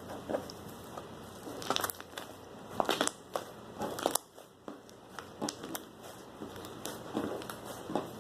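Slime being squeezed and kneaded by hand, making irregular squishes and sharp little clicks as it is pressed and stretched.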